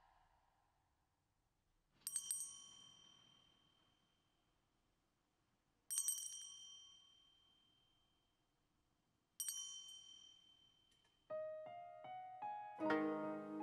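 A bell rung three times, about four seconds apart, each stroke ringing out and dying away. Near the end, keyboard notes step in one after another, followed by a fuller chord.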